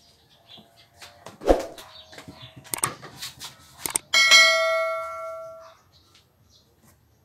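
A few clicks and knocks, then a bright bell ding about four seconds in that rings out for about a second and a half: the notification-bell sound effect of a subscribe-button animation.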